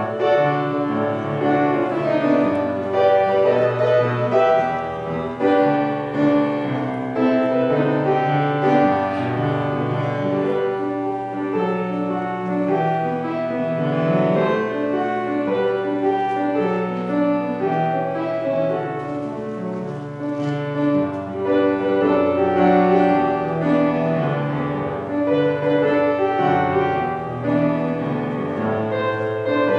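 Postlude at the close of a church service, a slow classical-style piece played on a keyboard instrument in held chords over a moving bass line.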